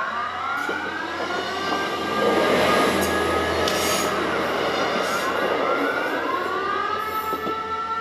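Civil-defence air-raid siren wailing, its pitch rising and falling, while a passenger train passes close by over the level crossing. The train's rushing rumble swells about two seconds in, is loudest for a couple of seconds and dies away by about six seconds, with the siren carrying on over it.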